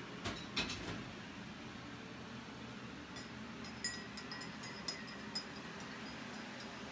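Kitchen utensils handled while baking: a few knocks in the first second, then from about halfway a run of light clinks, a few a second, with a faint ring.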